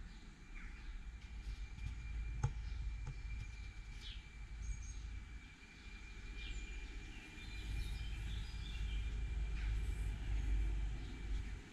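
Low rumble of wind buffeting the microphone, swelling and fading, with scattered bird chirps and a single sharp click about two and a half seconds in.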